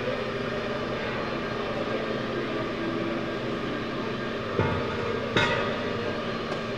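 Go-karts running on an indoor track, a steady mechanical hum with several held tones in it. Two sharp knocks close together come a little past the middle.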